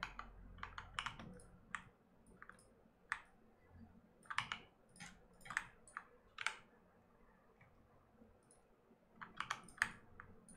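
Scattered clicks of a computer keyboard and mouse, quiet and irregular, coming in small bunches with a pause of a couple of seconds past the middle.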